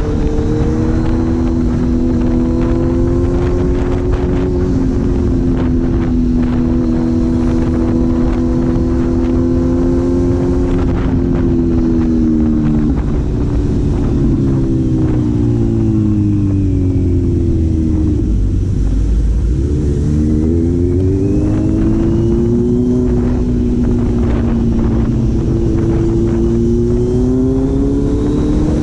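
Four-cylinder engine running under way at steady revs, then falling in pitch as it slows, from about 13 to 19 seconds in, and rising again as it picks up speed.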